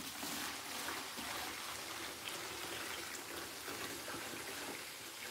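Water pouring steadily from a jerry can into a reef aquarium. It flows smoothly without glugging, through an air hole cut in the can.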